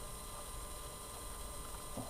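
A few faint, brief clicks of small tools and parts being handled while fitting a tiny RC car shock absorber, over a steady electrical hum.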